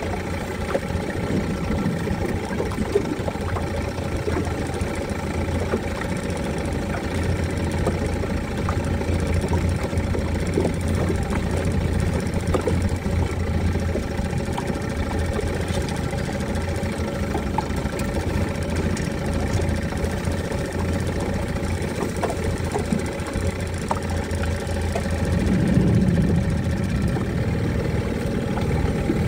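A small fishing boat's motor runs steadily with a low drone, over a steady rush of noise. It swells louder briefly near the end.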